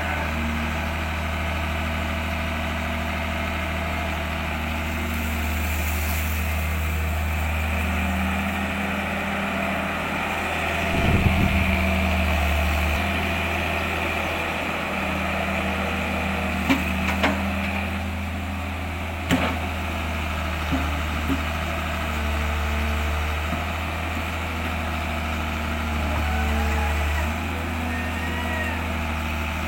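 An engine running steadily at idle, a low even hum, with a few sharp knocks partway through.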